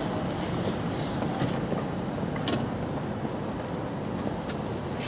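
Popcorn vending machine running through its popping cycle: a steady mechanical rumble with a few faint ticks.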